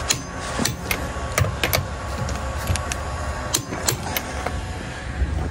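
Irregular sharp clicks and light metallic clanks of hand tools being handled at a car wheel, about fifteen in all, over a steady low background rumble.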